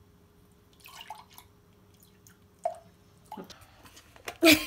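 Milk pouring from a carton into a glass measuring jug in irregular glugs and splashes, coming faster towards the end, with the loudest near the end.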